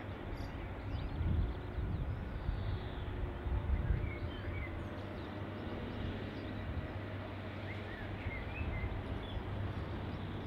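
Steady low rumble of a receding Class 47 diesel locomotive's Sulzer engine running far off down the line. Small birds chirp here and there over it.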